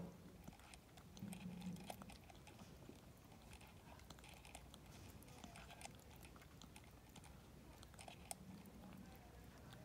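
Vervet monkey sucking and drinking from a feeding bottle held to its mouth: faint, irregular small clicks and smacks of mouth and tongue.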